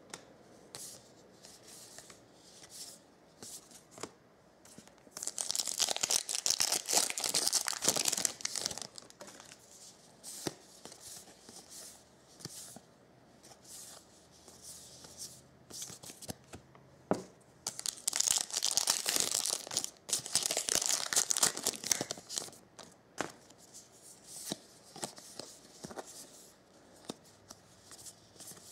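Crinkling and tearing of a foil trading-card pack wrapper in two loud stretches, about five seconds in and again about eighteen seconds in, with light clicks of baseball cards being flicked through by hand in between.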